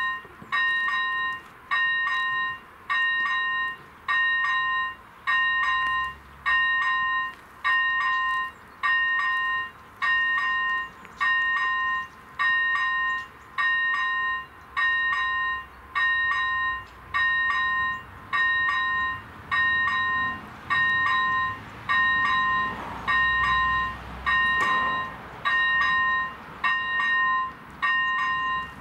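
Railway level crossing's electronic warning bell ringing in an even, pulsing pattern, about once a second, as the crossing warns of an approaching train.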